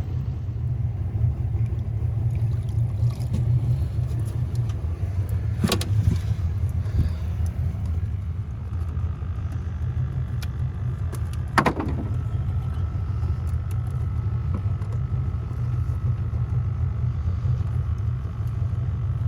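Boat motor running steadily with a low rumble. Two sharp knocks come about 6 and 11.5 seconds in.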